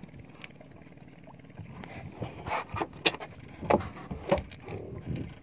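Sea water lapping and slapping against a small fishing boat, with several short knocks and splashes between about two and five seconds in.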